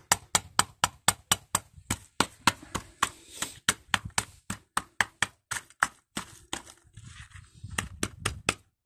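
Lumps of quicklime being crushed with a hammer in a metal pan: quick, sharp knocks about four a second. They break off for a second or so, then a few more come near the end.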